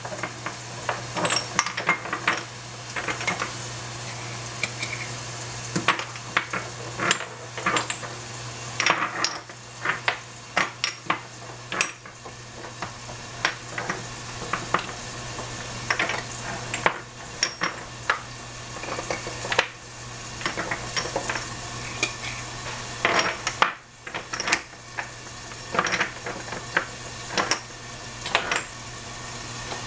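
Metal utensils and cookware clinking and knocking against a pot in irregular strokes, over a steady sizzle of food cooking and a low steady hum.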